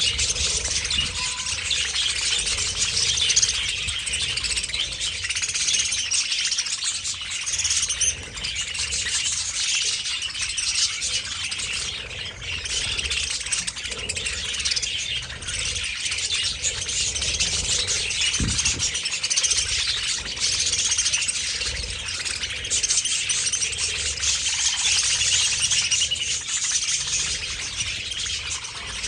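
A large flock of budgerigars chattering and chirping together in an aviary, a dense, continuous mass of overlapping warbles and chirps.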